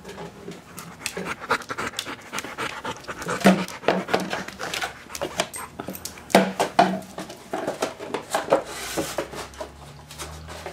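Dog panting hard, with many sharp clicks and scuffs as claws skitter on a tile floor.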